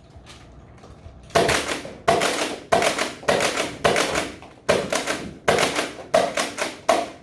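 Pump-action Nerf Rival blaster being pumped and fired in quick succession: a rapid run of about a dozen sharp plastic clacks and shots, starting about a second in.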